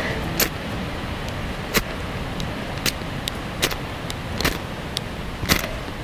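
Striker scraped down a ferrocerium fire steel onto a cotton wool ball: about six short, sharp scrapes, roughly one a second, with a few fainter ones between.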